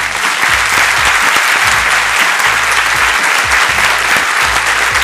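Large audience applauding steadily: a dense, even clatter of many hands clapping that starts right at the end of the speech.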